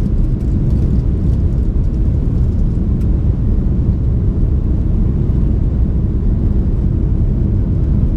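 Steady low rumble of an Airbus A330-300's jet engines and rushing air, heard from inside the passenger cabin during the climb just after takeoff.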